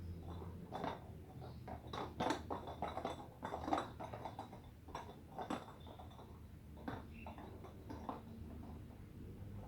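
Rubber light-up yo-yo ball toy being handled, giving a string of irregular small clicks and knocks that are busiest in the middle.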